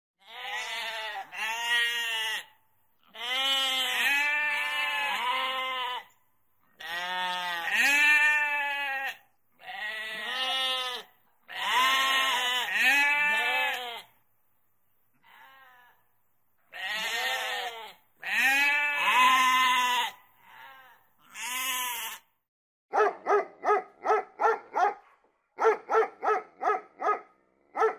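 Sheep bleating over and over, the calls coming in groups of two to four and sometimes overlapping. Near the end a dog barks in a quick, even series of about two to three barks a second.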